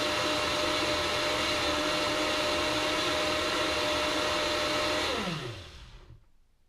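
Vitamix S55 personal blender motor running at full speed on its Power Blend preset, blending carrot apple juice. About five seconds in the preset ends: the motor's whine drops in pitch as it spins down and fades away within a second.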